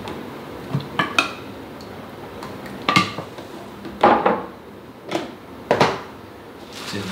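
A spoon clinking and knocking against a bowl about eight times at irregular intervals, as the sauce is mixed.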